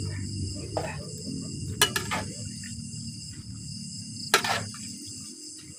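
Crickets chirring steadily over a low rumble, broken by a few sharp knocks, loudest about two and four and a half seconds in, as wooden stirring sticks strike the metal cauldron of boiling kangkong and the firewood beneath it.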